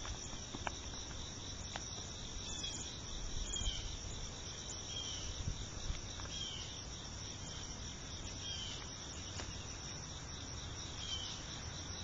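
Insects chirring steadily in a constant high-pitched trill, with a short falling chirp recurring every second or two.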